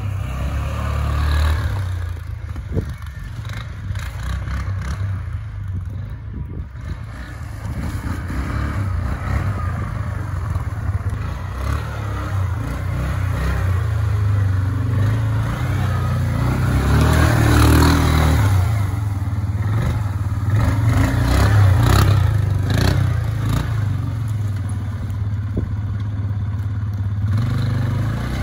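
Yamaha Kodiak ATV's single-cylinder engine running and revving as it turns tight donuts, with tyres scraping and churning through snow and leaf litter; it is loudest a little past the middle.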